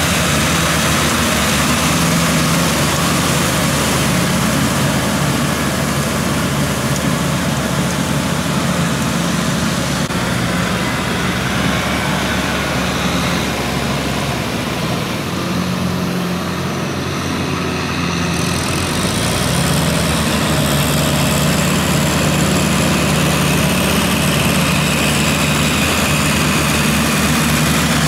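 Kubota farm tractor's diesel engine running steadily under load as it drives a rotary tiller through flooded paddy mud, its note shifting slightly around the middle.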